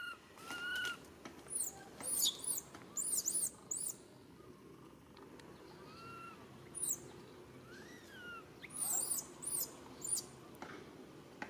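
High-pitched chirping calls in quick runs, with a few short, clear whistled calls in between.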